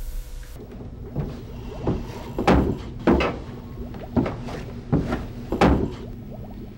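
Footsteps thudding down wooden stairs at a walking pace, about one heavy step every two-thirds of a second, over a faint steady hum.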